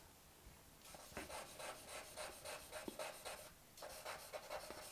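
A charcoal stick scratching over drawing paper in a run of quick, short strokes. It is faint, and the strokes start about a second in.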